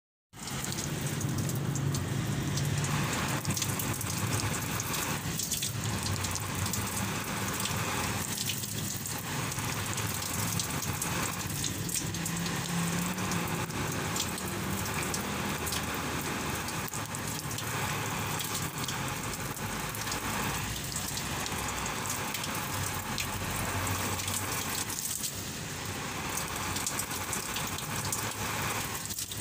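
Water pouring and splashing onto a large caladium leaf and the foliage beneath it, a steady hiss that dips briefly every few seconds.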